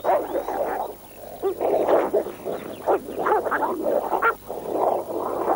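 Two dogs fighting, snarling and growling in rapid, irregular bursts.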